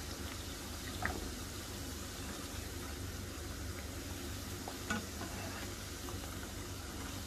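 Hot oil bubbling and sizzling steadily as semolina-and-flour dough discs (khasta pori) deep-fry in a pan, just beginning to turn golden. Two faint clicks come about a second in and near five seconds.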